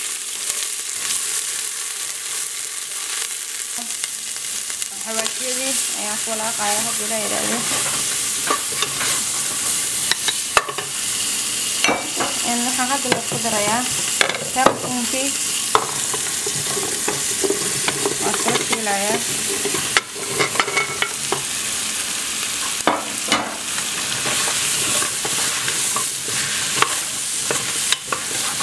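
Chopped onion sizzling in hot oil in a nonstick pot, stirred with a wooden spoon that scrapes and taps against the pot from time to time.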